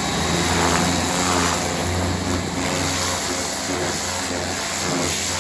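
High-pressure cleaner running steadily: an even motor and pump hum under the hiss of the water jet spraying the mower's deck.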